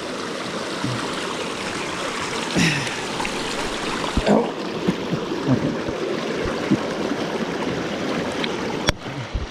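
Mountain creek water rushing steadily, with a few brief bumps over it and a sharp click near the end.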